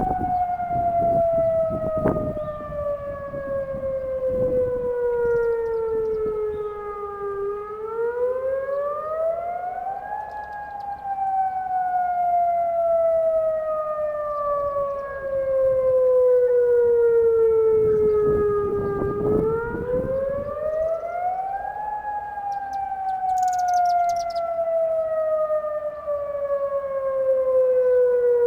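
Federal Signal Modulator 6048 outdoor warning siren sounding its Attack signal, a slow wail. The pitch climbs over about three seconds, then falls slowly over about eight, and the cycle repeats twice.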